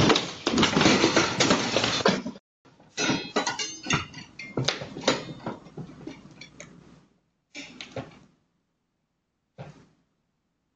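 Household objects knocked over by a cat clattering onto the floor: a loud jumble of knocks and rattles for the first two seconds or so, then scattered sharper clicks and knocks that thin out, with two brief clatters near the end.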